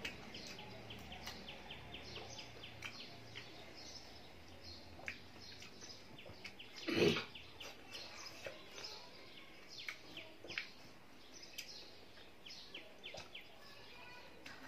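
Small birds chirping and calling repeatedly in the background, including a rapid ticking trill in the first couple of seconds. About seven seconds in there is one louder, short sound.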